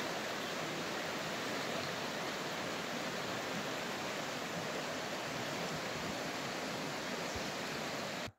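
Shallow stream flowing over rocks: a steady rushing of water that cuts off suddenly near the end.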